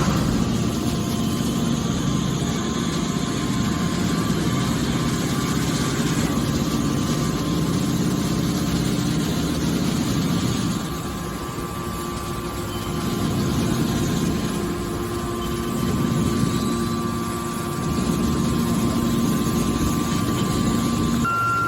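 Horizontal hydraulic metal baler running: a steady machine hum, strongest in the low range, that dips for a couple of seconds about halfway through and then swells back up.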